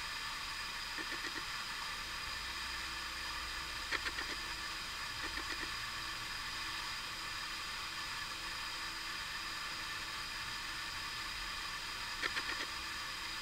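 Steady hiss of background recording noise, with a faint steady hum in it. A few short clusters of soft clicks come about one, four, five and twelve seconds in.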